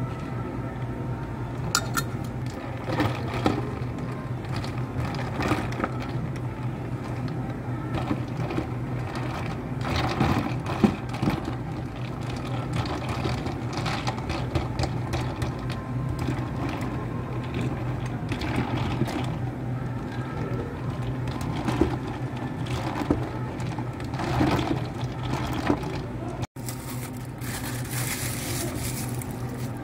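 Steady low hum of café equipment under scattered clinks and knocks of plastic cups and ice as iced lattes are put together. Near the end there is a crinkly plastic rustle as lids are pressed onto the cups.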